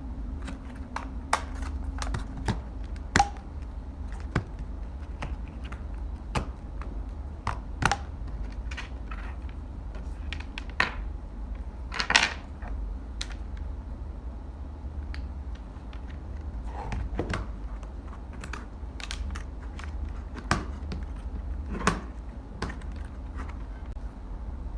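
Irregular clicks and taps of plastic parts of a 3-in-1 wireless charger stand being handled and fitted together during assembly, over a steady low hum.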